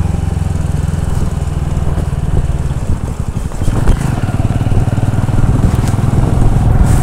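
Motorcycle engine running steadily under way, heard from on the bike. The engine note breaks up and dips briefly about three seconds in, then steadies again.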